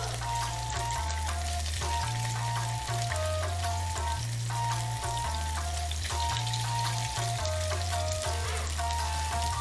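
Background music with a repeating melody of short notes over a stepping bass line, with a steady sizzle underneath from torn pieces of tofu frying in oil in a pan.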